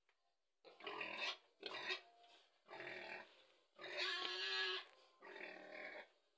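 A pig grunting five times in a row, each call under a second long, the fourth one longer and shriller than the rest.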